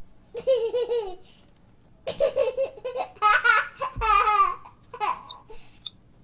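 High-pitched laughter and babbling in several short wavering bursts, with a low thump about four seconds in.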